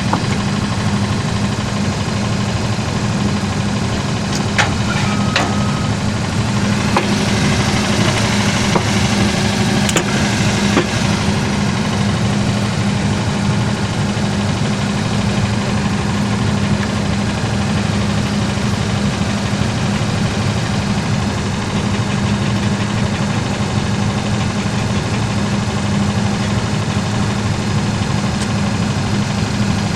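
An engine idling steadily with a constant low hum. A few light clicks come about four to five seconds in and again around ten seconds.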